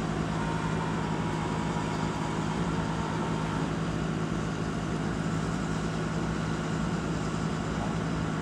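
A machine engine running steadily at a constant speed, with a low hum that does not change.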